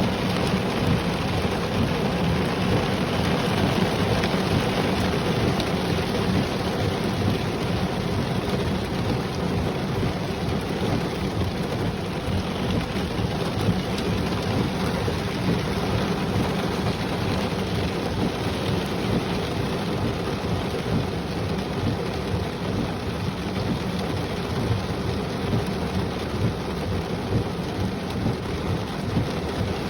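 Heavy rain falling steadily, with a low rumble of thunder underneath.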